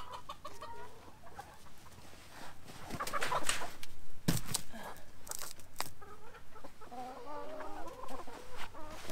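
Chickens clucking, with a run of clucks near the end. In the middle come several sharp knocks and rustles, louder than the clucking.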